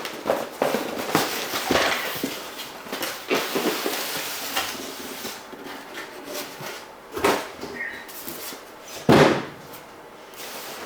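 Handling of an airbrush kit's box and parts: a string of rustles, clicks and knocks, the loudest knock about nine seconds in.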